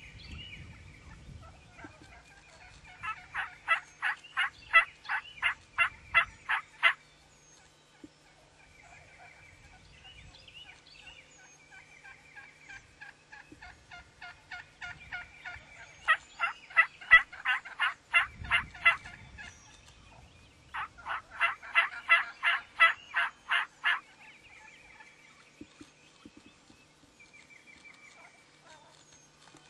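Wild turkey yelping: three long runs of loud, evenly spaced yelps, about three or four a second, with softer calls in between.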